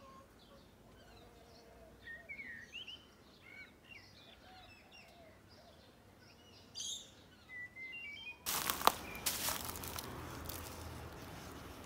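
Small birds chirping faintly, then a sudden steady hiss of noise about eight seconds in, with a sharp click just after it, louder than the birdsong.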